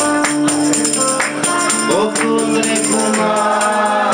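Live band playing a Neapolitan folk song: a singer over strummed acoustic guitar, with a tambourine beaten and shaken so its jingles ring on a steady beat.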